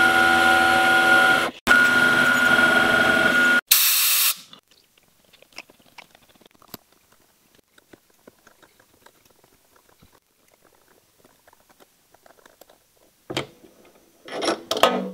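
Eastwood mini lathe running with a steady whine of several tones, broken off twice by cuts, ending in a brief hiss about four seconds in. After that come faint clicks and rattles of hands working the lathe's chuck, with a few short louder knocks near the end.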